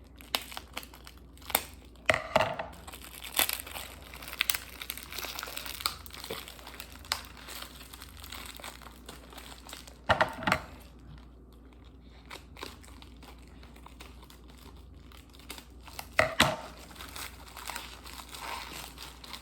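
Packaging crinkling and tearing as a boxed puzzle cube is unwrapped by hand, irregular, with a few louder crackles about 2, 10 and 16 seconds in.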